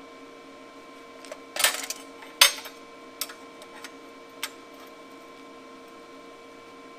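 Metal pieces clattering on a perforated steel welding table: a short rattling clatter about one and a half seconds in, a sharp metal clank just after, then a few lighter clicks.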